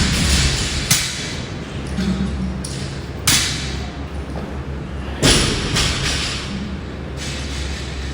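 A light barbell loaded with 5 kg plates thudding onto the floor during workout reps: four thumps at irregular gaps of one to two seconds, over a steady low hum.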